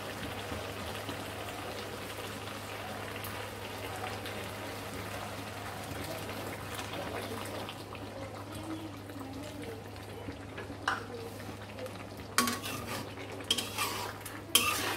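Ash gourd pieces sizzling and simmering with a steady hiss in a wok over a gas burner. From about eleven seconds in, a spatula scrapes and clinks against the wok several times as the curry is stirred.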